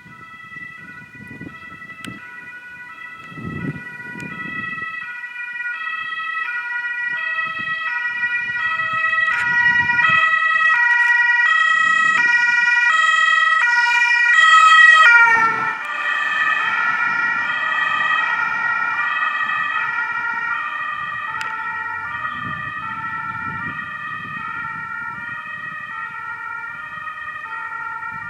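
Fire brigade crew transport van (MTF) driving past with its German two-tone siren (Martinshorn) sounding. The alternating tones grow louder, drop in pitch about halfway through as the van goes by, then fade, over a low rumble of engine and tyres.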